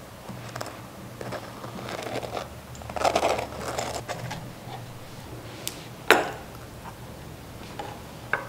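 Metal butter knife scraping and spreading butter across a slice of crisp toast, the loudest scraping about three seconds in. A sharp clink of cutlery about six seconds in, and a smaller one near the end.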